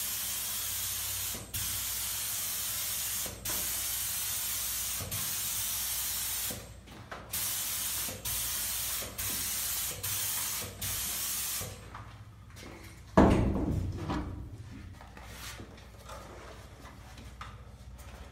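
Air spray gun hissing in a string of bursts of a second or so with short breaks, as it sprays activator onto a hydrographic print film floating on water; the spraying stops about 12 seconds in. A sudden loud thump follows about a second later.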